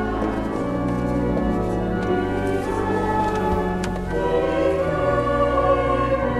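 Choir singing slow, held chords over a steady low bass line.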